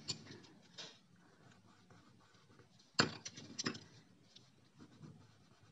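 Wooden coloured pencils being handled and set down on paper, knocking lightly against one another in a few short clicks, the loudest cluster about three seconds in.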